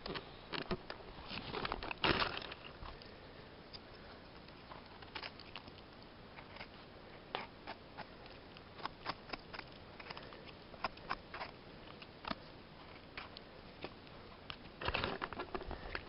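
Dry pine needles, moss and twigs crackling and rustling as a porcini mushroom is worked loose from the forest floor by hand: scattered small clicks and snaps, with denser crunching near the start and again near the end.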